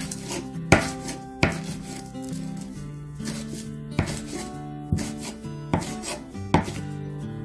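Kitchen knife slicing through stacked perilla leaves and knocking on a wooden cutting board, a sharp knock every second or so.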